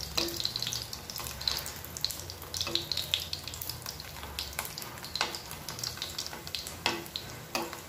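Hot oil sizzling and crackling with frequent pops around a stuffed egg-and-potato mughlai paratha shallow-frying in a frying pan, while oil is spooned over its top.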